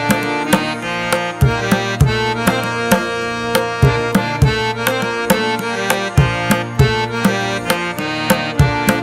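Background instrumental music: a steady hand-drum beat, about two strikes a second, over held melodic notes.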